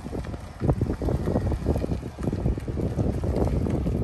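Wind buffeting the microphone: an uneven, gusty low rumble that grows louder a little under a second in.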